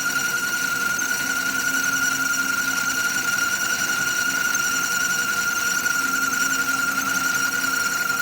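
BCA mini jig borer cutting metal dry, with no cutting fluid: a steady high-pitched screech from the cutter over a low machine hum.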